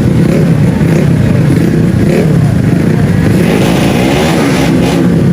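Racing-tuned 155cc automatic scooter engines running loud at high revs, the pitch rising and falling as they are revved.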